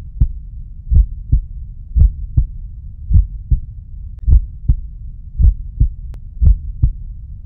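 Slow heartbeat sound effect: paired low thuds, lub-dub, repeating a little less than once a second over a low steady hum.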